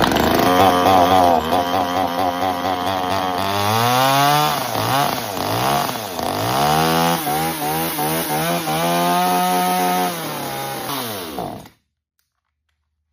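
Small new gas chainsaw's two-stroke engine running on its first start out of the box, just caught on the second pull. It runs steadily, is revved up and down several times in the middle, settles again, and cuts off suddenly near the end.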